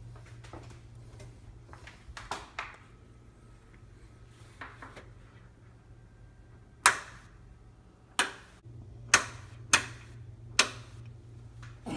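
Sharp clicks and knocks of hands handling fittings under a kitchen range hood: a few light ones, then five loud ones about a second apart in the second half, over a steady low hum.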